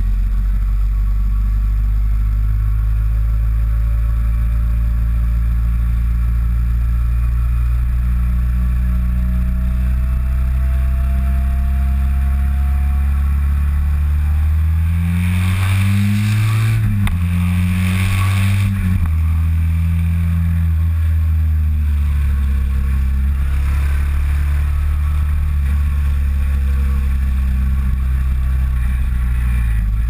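Kawasaki W650's air-cooled parallel-twin engine running steadily on the move. About halfway through it revs up and drops back twice, as when shifting up through gears, with a rush of hiss over it.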